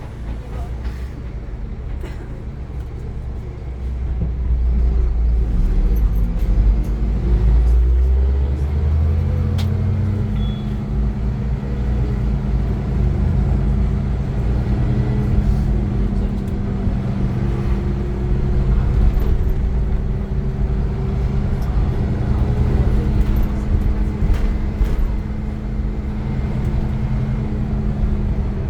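Iveco Crossway LE 12 bus's Cursor 9 diesel engine pulling the bus away: its note climbs and grows louder over several seconds as the bus accelerates. It then settles into a steady run.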